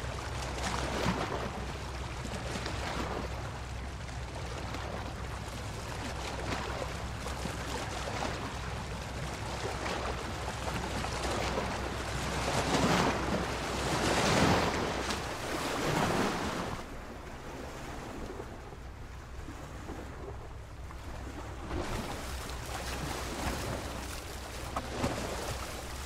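Ocean surf: waves breaking and washing up the beach, with the biggest surge building and falling away about 12 to 16 seconds in.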